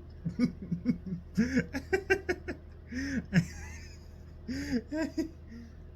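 A person's wordless voice sounds: short rising-and-falling coos and soft laughs with breathy hisses between them, several in quick succession with a pause in the middle.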